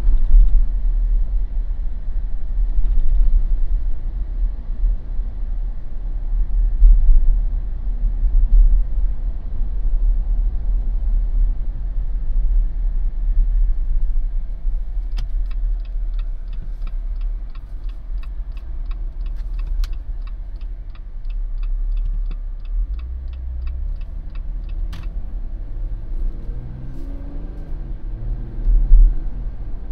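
Steady low road and engine rumble heard from inside a Jeep's cabin. About halfway through, the turn-signal indicator clicks about twice a second for about ten seconds, around a turn at a stop-sign intersection. Near the end the engine rises in pitch as the Jeep accelerates.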